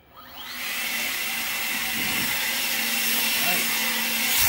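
EGO 56V cordless electric leaf blower spinning up about a quarter second in with a rising whine, then running steadily at its middle speed setting with a whirring rush of air and a steady high tone. A short, loud burst of air noise comes near the end.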